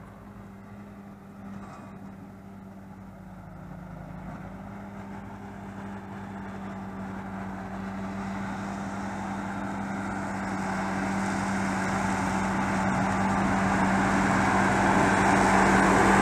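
Deutz-Fahr tractor engine running steadily while its side-mounted Krone mower-conditioner cuts alfalfa. The sound grows steadily louder as the tractor approaches, and the rush of the mower becomes loudest near the end as it passes close by.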